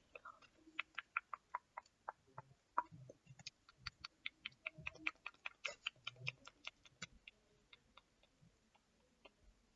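Slime being squeezed and pulled apart by fingers close to the microphone: a quiet, rapid run of sticky clicks and pops, several a second, with a few soft thuds.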